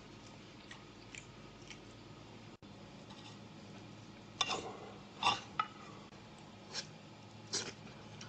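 A knife carving a roast leg of lamb on a plate: about five short scrapes and clicks of the blade through the meat and against the plate in the second half, after a few faint clicks.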